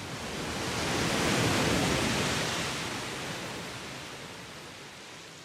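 A sea wave surging in and washing back, its rush swelling to a peak about two seconds in and then slowly fading.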